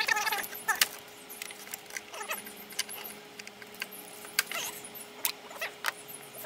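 Scattered light metallic clicks and clinks of hands and a tool working among parts in a car's engine bay.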